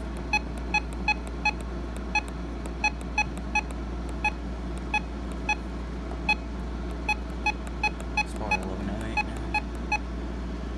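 RadioShack 262 weather radio giving a short key-press beep each time its arrow button is pressed while the clock is stepped forward, about twenty beeps at uneven spacing.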